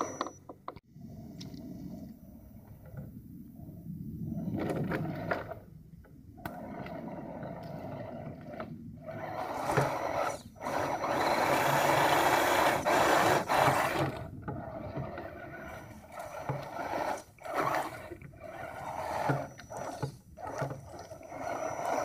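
Axial SCX10 Trail Honcho 1/10-scale RC crawler's electric motor and drivetrain gears whirring in bursts as it crawls up and over a mossy log, starting and stopping with the throttle and loudest about halfway through.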